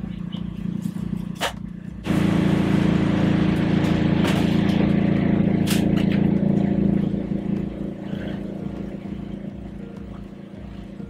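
Steady machine hum inside a food trailer. About two seconds in, a much louder rushing noise starts suddenly, holds for about five seconds, then fades away, with a few sharp clicks or knocks.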